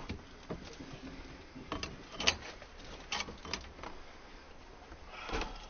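Crowbars prying at a door and its frame: a handful of irregular sharp knocks and clicks of metal on wood, the loudest a little after two seconds in.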